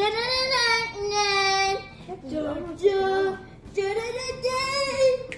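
A child singing three phrases with long held notes.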